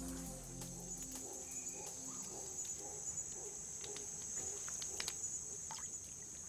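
Steady high-pitched chorus of jungle insects such as crickets, with scattered sharp clicks.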